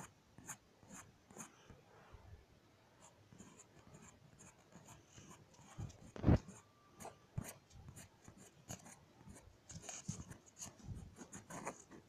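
Faint scattered clicks and rubbing, with one louder thump about six seconds in: a phone being handled and its touchscreen swiped, picked up by the phone's own microphone.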